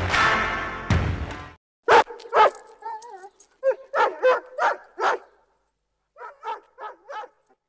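The last of an intro music hit rings out over the first second and a half. Then a yellow Labrador barks: two sharp barks, a short wavering whine, a run of five barks, and after a pause four quicker, quieter barks.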